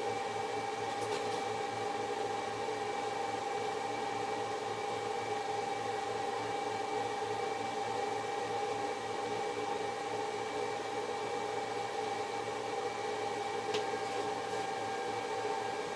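A machine running steadily: an even hum with a fixed whine and a fast low flutter, like an electric motor or cooling fan.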